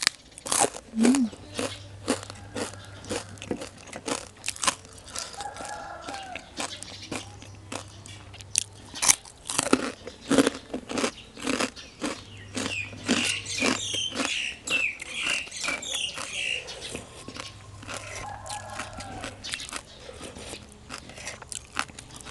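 Close-miked crunching and chewing of crispy pork rind, with many sharp crackles in quick succession as it is bitten and ground between the teeth.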